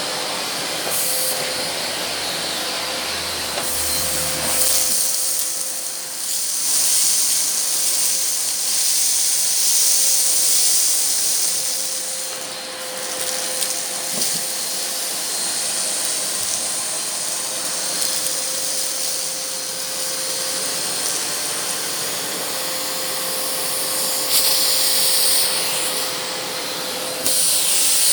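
Argos Simple Value vacuum cleaner running: a steady motor whine under a rush of air that swells and dips a few times.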